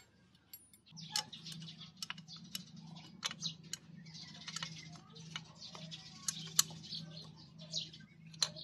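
Faint, irregular metallic clicks and taps of hand tools worked on the cylinder-block bolt of a small motorcycle engine, over a steady low hum that sets in about a second in.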